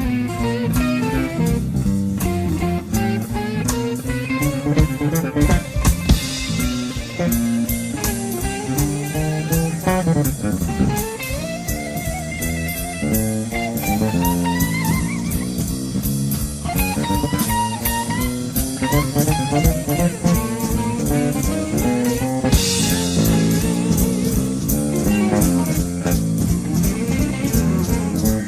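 An instrumental jam led by electric bass over a drum kit: busy plucked bass lines with notes that slide and waver in pitch, against steady drumming.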